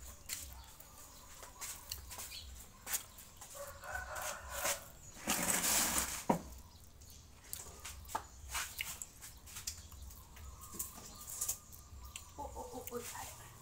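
Domestic chickens calling twice in the background, each call a short pitched cackle or crow. In between are small clicks and a short rustle about five seconds in, from eating by hand at the table.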